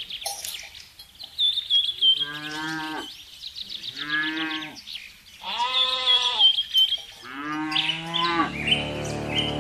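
A cow mooing four times in short calls, with high birdlike chirps between them. A steady low hum starts near the end.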